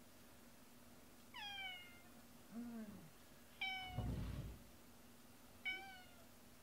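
Domestic cat meowing: three short meows about two seconds apart, each falling slightly in pitch, with a lower, shorter call between the first two. A low muffled bump comes about four seconds in, just after the second meow.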